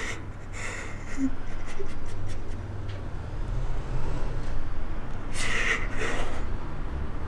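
A woman crying with heavy, ragged breaths, with a louder gasping sob between about five and six and a half seconds in, over a low steady hum.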